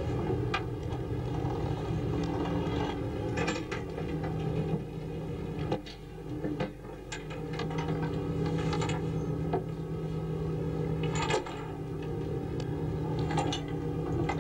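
A fishing boat's engine and winch run steadily with a low hum while the trawl warps are heaved in, with irregular sharp metal clicks and clanks from the chain and gear.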